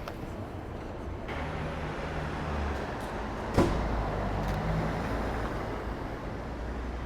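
Street traffic noise: a motor vehicle's low engine hum swells and fades over a few seconds, with one sharp click about halfway through.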